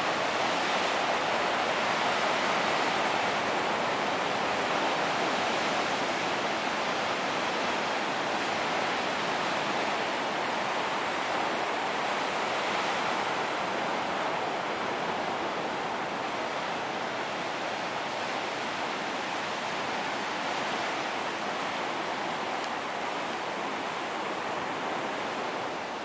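Ocean surf washing steadily on a sandy beach, an even rush of noise with no single waves standing out.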